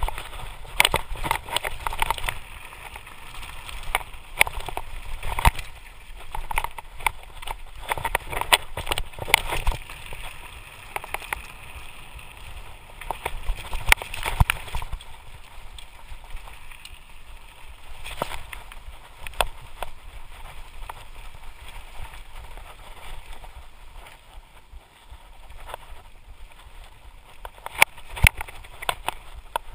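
Lapierre Spicy full-suspension mountain bike descending a rocky trail: tyres crunching over loose stones, with frequent irregular rattles and clanks from the bike as it hits rocks.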